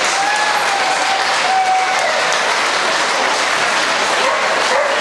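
Steady applause from a crowd in a large hall, with a voice faintly heard underneath.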